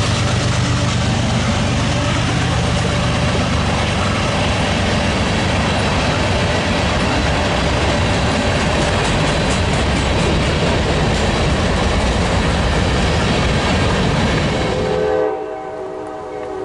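A freight train passing close: the steady rumble and clatter of wheels on the rails, with a low diesel engine hum fading in the first few seconds. About 15 s in it cuts off abruptly to a fainter multi-note train horn chord.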